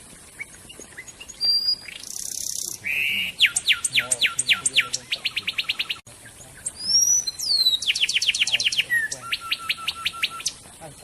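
Songbird singing two loud phrases, each a rapid run of sharply falling whistled notes, with a short buzzy note before the first run.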